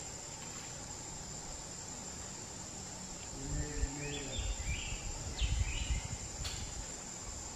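Steady high-pitched chorus of insects, crickets or cicadas, in the background. Over the second half come a few brief indistinct sounds and low rumbles.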